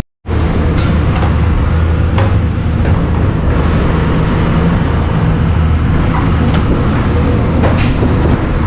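Steady low drone of a motor vehicle running, after a brief dropout at the very start.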